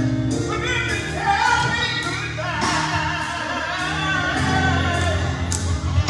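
Live band music with a singer: a sung melody glides and wavers over a steady bass line, and a drum kit keeps time with regular cymbal strikes.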